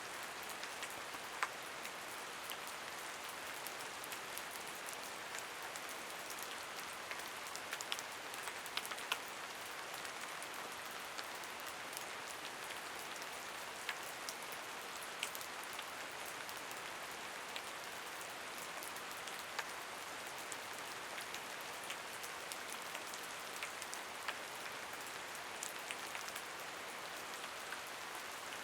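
Steady rain falling, an even hiss with scattered sharp drips and patters of drops striking a surface.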